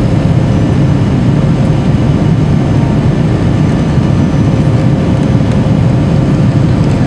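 Steady, loud cabin noise of an Airbus A330 climbing after takeoff: a low engine drone mixed with rushing airflow, and a faint steady hum running through it.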